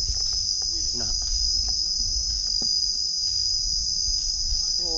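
Steady high-pitched drone of insects in the trees, with a low rumble underneath and a few faint clicks.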